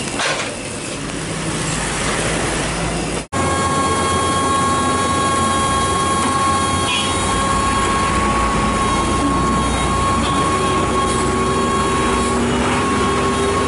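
Excavator running under load, a steady high whine held over engine noise as its bucket holds up a leaning dump truck. It starts abruptly about three seconds in, after a break in the sound, and its lower tone rises slightly near the end.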